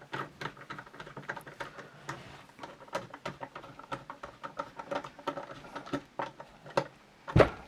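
Dense small clicks and scraping of steel rifle parts being handled and fitted during reassembly of a Berthier rifle. There is one louder knock near the end.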